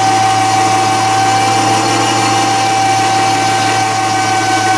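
Reese 1-ton 12-volt ball winch's electric motor running steadily under load as it winds in its cable and pulls a lawn tractor up wooden ramps. It makes a constant hum with a steady high whine.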